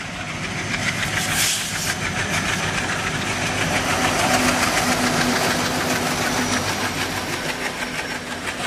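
Twin ALCO WDG3A diesel locomotives chugging as they pass at speed. The engines grow louder as they approach, are loudest about four seconds in, then ease a little as the coaches follow.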